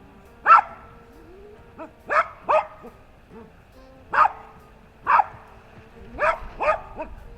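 Cavalier King Charles Spaniel barking in short, sharp single barks, about nine of them at irregular intervals, some in quick pairs: alert barking at something around the tent.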